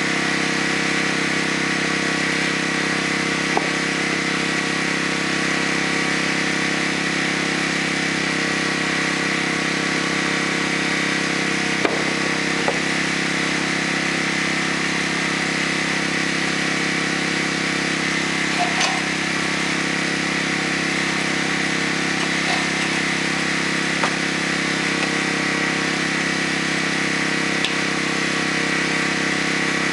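A small engine running steadily at a constant speed, with a few faint knocks now and then.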